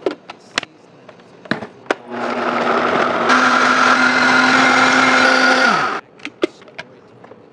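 Countertop blender blending a chili sauce with pickled jalapeños. It starts with a few plastic clicks as the jar and lid are fitted. The motor then runs loudly and steadily for about four seconds, steps up in speed a little over a second after starting, and winds down in pitch as it is switched off, followed by a couple more clicks from the lid.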